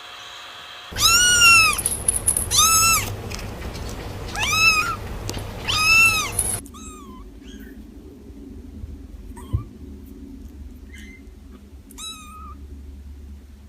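Kitten meowing: four loud, high-pitched meows that rise and fall, then several fainter, shorter mews.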